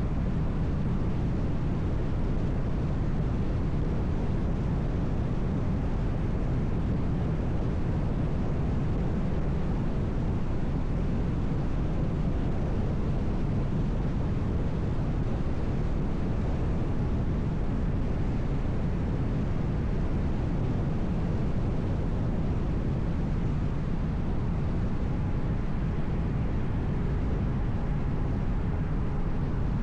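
Car driving on a highway: steady road and tyre noise with a low engine hum, even throughout.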